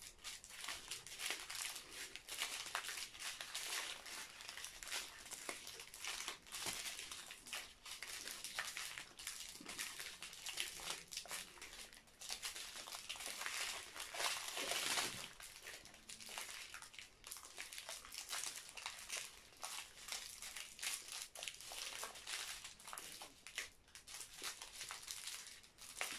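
Small plastic sachets of diamond-painting drills crinkling and rustling as they are handled and leafed through by hand, the bags being checked and counted. The rustling swells for a moment about halfway through.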